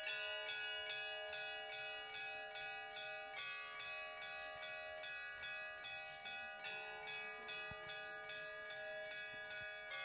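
Orthodox church bells ringing from a small belfry: a fast, even run of strokes, about four a second, over held, overlapping ringing tones.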